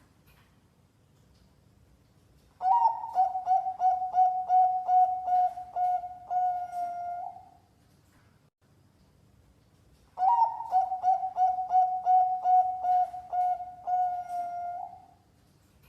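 Zebra dove (perkutut) cooing a competition-class song, twice: each phrase is a quick run of short, even coos that ends in a longer held note.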